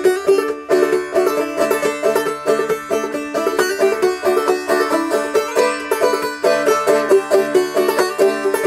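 Five-string banjo played clawhammer style, a Christmas carol melody picked in quick, evenly driven notes in C tuning capoed up to D, on strings its owner thinks are due for replacement.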